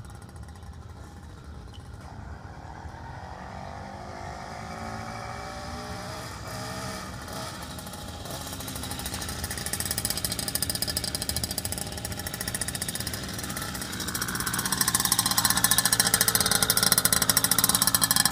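Two-stroke motorized-bicycle engine with an expansion chamber exhaust, running as the bike rides toward the listener. It is faint at first, its pitch rising and falling with the throttle, then grows loud over the last few seconds as it comes close.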